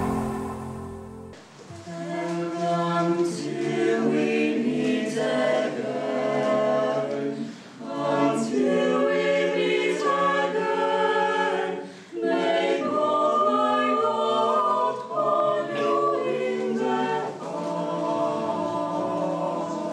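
A small mixed choir singing a cappella in several parts, pausing briefly between phrases. In the first second or so the tail of an electronic news-intro jingle fades out before the voices come in.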